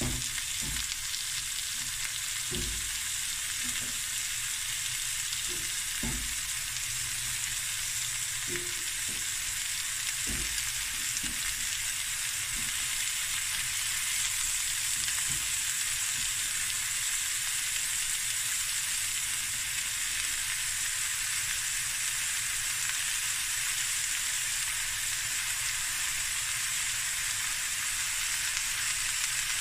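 Chicken pieces frying in their own rendered fat in a metal pan, with no oil added: a steady sizzle. In the first twelve seconds or so there are a few soft thuds as chunks of sweet potato are dropped in among the chicken.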